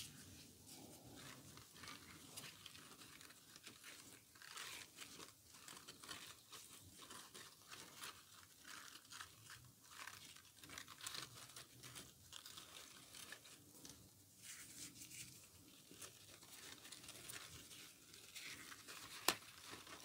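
Faint rustling and crunching of Chinese cabbage leaves being handled, in many irregular small crackles, with one sharp click near the end.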